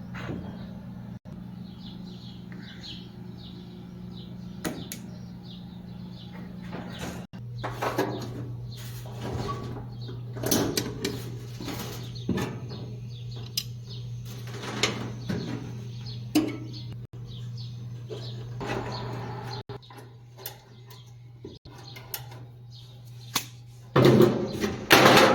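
Scattered knocks and clatters of parts and tools being handled while a dryer is worked on, over a steady low hum that drops in pitch about seven seconds in. The clatter grows louder near the end.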